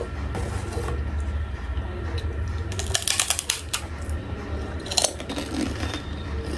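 Mukbang eating sounds close to the microphone: sipping from china bowls and chewing, with a quick run of sharp clicks about three seconds in and another click about five seconds in, over a steady low hum.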